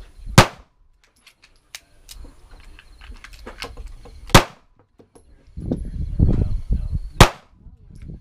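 Three single gunshots from a firearm being fired at targets, about four and then three seconds apart, with low rumbling noise between the shots.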